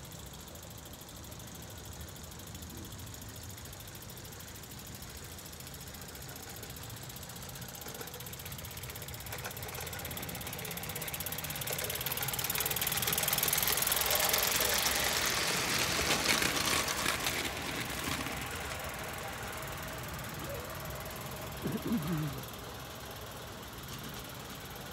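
A miniature railway locomotive running along the track, growing louder as it comes close and passes, then fading again. A short, sharper sound stands out near the end.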